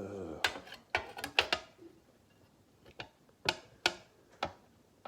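Sharp clicks and knocks of small hard RC car parts being handled and fitted together by hand, about eight in an irregular run, most of them in the first two seconds and a few more later.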